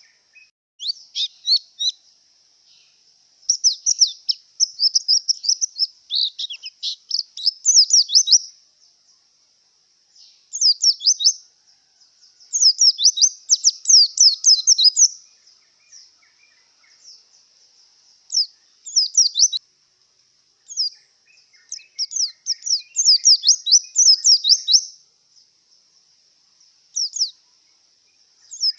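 White-eye (pleci) singing in bursts of rapid, high twittering notes lasting one to four seconds, with short pauses between them. This is the song of a bird in breeding condition.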